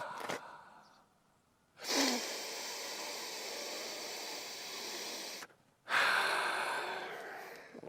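A man taking long, deep breaths, two full ones and the tail of another with short pauses between. He is sniffing the air for burning wiring after the battery is switched on, and the heavy breathing leaves him woozy.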